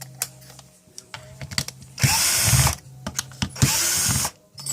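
Cordless drill-driver run in two short bursts of about a second each, one about two seconds in and one near the end, with a few clicks before.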